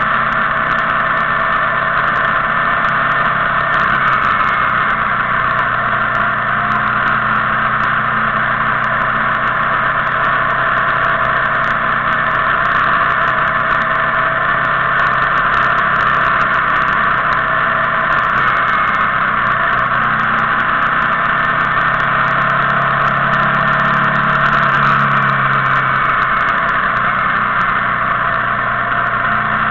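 Motorcycle engine running at a steady cruising speed, heard from on board the bike under a constant rush of wind and road noise.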